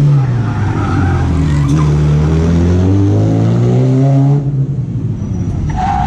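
A small hatchback's engine revving hard under acceleration on a cone course, its pitch climbing and dipping with the throttle. It drops back sharply about four seconds in as the driver lifts off, and a short high squeal starts near the end.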